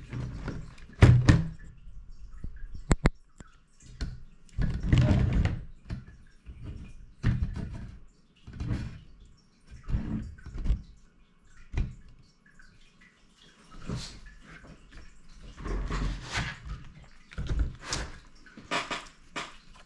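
Scattered clicks, ticks and light knocks of a screwdriver and hands working on a laptop's bottom panel as its screws are backed out, with a few dull thuds as the laptop and tools are handled.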